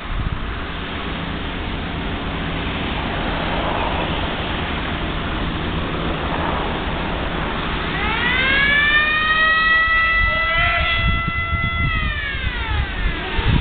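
A demolition warning siren winds up about eight seconds in, holds one steady pitch for about three and a half seconds, then winds back down near the end. Wind on the microphone runs underneath.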